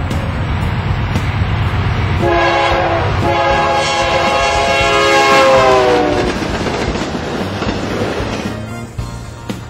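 Norfolk Southern diesel locomotives' air horn blowing a short blast then a long one over the rumble of engines and wheels on rail as an intermodal train approaches. The horn chord drops in pitch near its end as the lead units go by, and the rumble then fades down.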